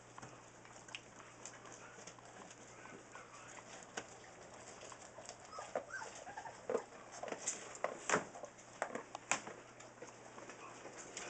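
Newfoundland puppies giving short whimpers and squeaks, most of them in the second half, with scattered small clicks and knocks.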